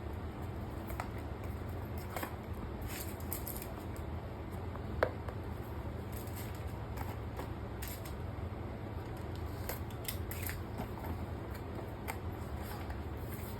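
Scattered light clicks and taps of small hard objects being handled, over a steady low hum, with one sharper click about five seconds in.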